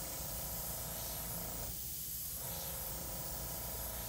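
Gravity-feed airbrush hissing as it sprays paint in short dagger strokes. The hiss is steady, with a brief drop about two seconds in where the air is let off between strokes.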